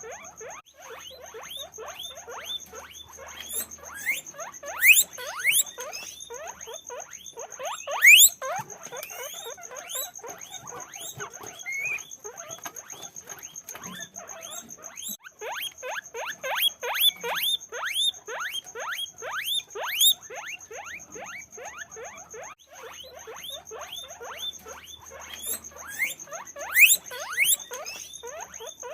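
Guinea pigs squeaking continuously: many short rising squeaks, several a second, with a few louder shrill squeals among them.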